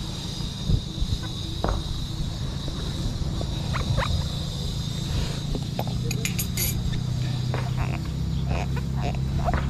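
Rolling noise from riding a fat-tyre bike: a steady low rumble of wind and tyres, with scattered clicks and a steady high-pitched whine. A low hum joins about eight seconds in.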